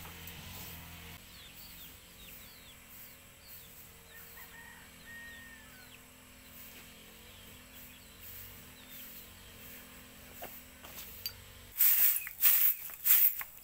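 Birds chirping faintly over a low steady hum, with one longer whistled note a little after four seconds. About twelve seconds in, a run of loud, rough bursts of noise starts, about two a second.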